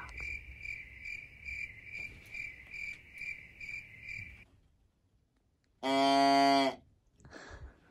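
A deer call sounded once, a single low-pitched call lasting just under a second, the loudest thing heard. Before it, a high steady tone pulses about two and a half times a second and stops suddenly, and a short rustle follows the call.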